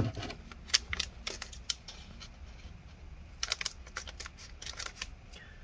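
Short, sharp clicks and snips as the plastic packaging of a replacement MacBook Air trackpad is cut open. They come in two bunches with a pause of about a second and a half between them.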